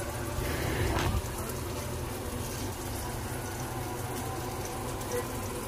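Stinging catfish (shing) curry simmering in a metal kadai on the stove: faint bubbling over a steady low hum.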